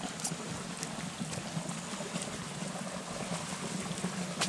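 Steady rush of running water from a stream after rain, with a few light clicks of footsteps on the wet road.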